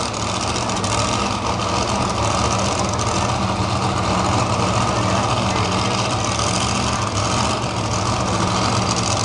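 Pulling tractor's engine idling steadily at the start line while hooked to the sled, a continuous low hum.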